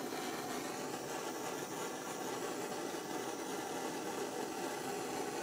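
Hand-held butane-propane blowtorch burning with a steady hiss, its flame heating the joint of a bandsaw blade for silver soldering.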